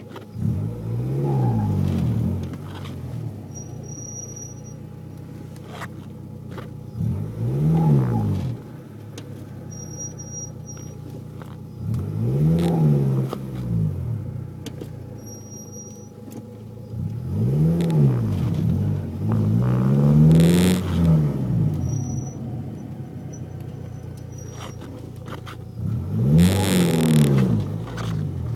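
A car pulling away from a dead stop five times as the clutch is let out, each time a rise and fall in pitch lasting a couple of seconds. It carries a squeak, like a tire spinning, during engagement, which the owner suspects comes from the new Stage 4 Competition Clutch and flywheel.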